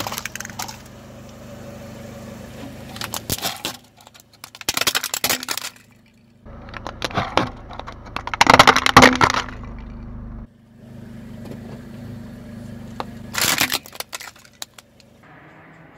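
A car tyre rolling over and crushing objects, with a series of crackling, breaking bursts; the loudest comes about halfway through. A low, steady engine hum runs underneath.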